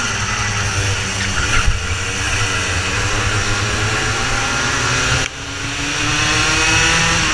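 Racing kart engine at high revs under race load. About five seconds in the throttle is lifted abruptly, and the revs then climb again as the kart accelerates away.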